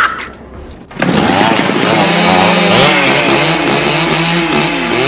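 A scream cuts off at the very start. About a second in, two gas-powered hand-held saws start up and are revved over and over, their engine pitch rising and falling.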